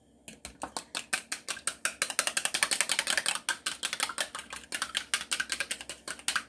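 An egg being beaten in a small cup: the utensil clicks quickly and evenly against the cup's sides, about eight clicks a second. The beaten egg is for an egg wash on a pie crust.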